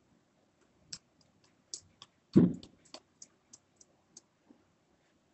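Small plastic clicks and taps from a toy monkey and a little toy bottle being handled, about a dozen, irregular and faint, with one louder, duller knock about two and a half seconds in.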